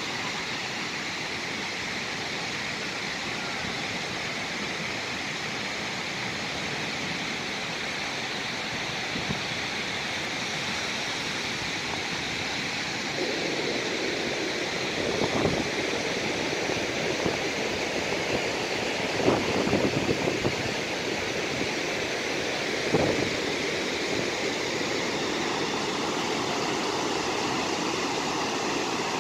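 Gokak Falls in full flood: a large waterfall's steady rush of water pouring into the swollen, churning muddy river below. The rush grows somewhat louder a little before halfway, with a few brief louder bumps in the middle.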